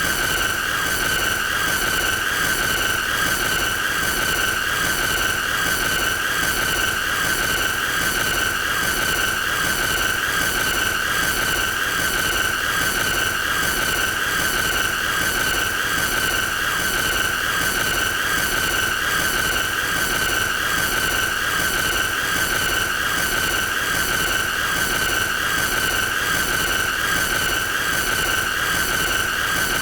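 A continuous shrill, high-pitched squealing tone with a harsh, fast buzzing flutter and a hissy edge. It holds the same pitch and loudness without a break: a looped sound effect made to be as annoying as possible.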